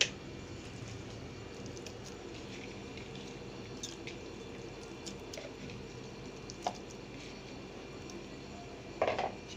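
Raw chicken pieces sliding and dropping into a stainless-steel mixer-grinder jar, making soft wet plops and small ticks over a steady low hum. There is a short knock about two-thirds of the way through and a louder knock near the end.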